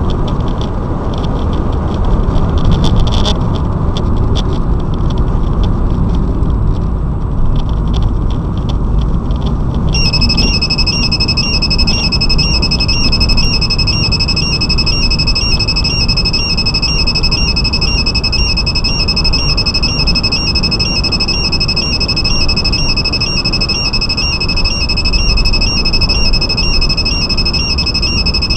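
Street Storm STR-5000EX radar detector sounding a high, rapidly pulsing beep alert from about a third of the way in, the sign that it has picked up a traffic radar. Car cabin road and engine noise runs underneath.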